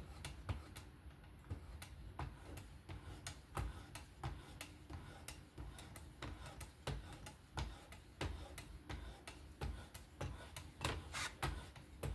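Light strokes of a knife edge on a Work Sharp Precision Adjust Pro fixed-angle sharpener, heard as faint, irregular ticks several times a second. These are finishing passes to clear the burr.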